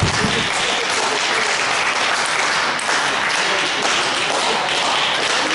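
Spectators applauding steadily after a table tennis point has been won.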